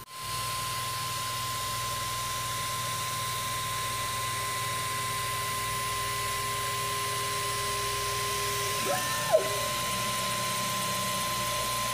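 Cetus3D desktop 3D printer running as it gets ready to print: a steady high whine over a low hum, and a stepper motor humming on one note for about five seconds while the nozzle and build plate close together. About nine seconds in, a short rising-and-falling motor whine ends in a click.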